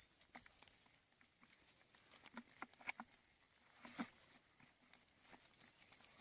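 Faint, scattered light taps and clicks over quiet background hiss, a little louder about two and a half, three and four seconds in.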